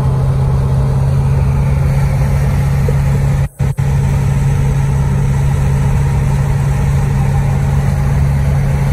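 Porsche 928S's V8 cruising steadily at about 2,000 rpm and 65 mph, heard from inside the cabin as a continuous low drone mixed with road noise. The sound cuts out briefly twice about three and a half seconds in.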